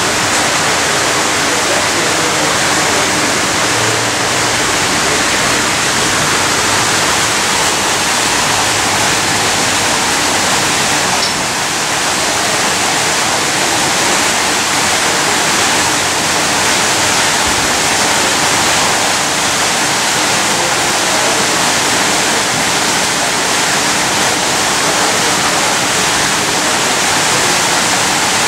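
Steady, loud rushing of running water, like a small waterfall, with no break or rhythm.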